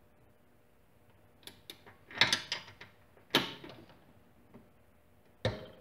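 Click-type torque wrench set to 20 pounds being pulled on a bolt: a run of ratcheting clicks, then a sharp click as the wrench reaches its set torque. The clicks start about a second and a half in, and there are a few more knocks near the end.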